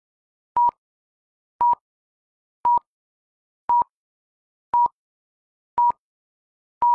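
Film-leader countdown sound effect: a short, steady high beep once a second, seven times, with silence between.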